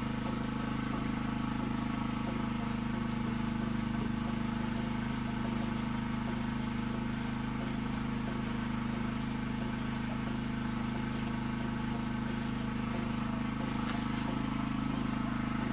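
A small motor or engine running steadily at constant speed, giving an even, unchanging hum.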